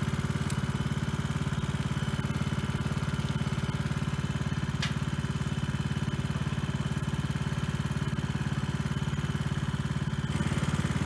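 Riding lawn mower's small engine running steadily with an even, fast pulse, as it tows the airsoft anti-tank gun cart. Two faint sharp clicks sound over it, one just after the start and one about halfway through.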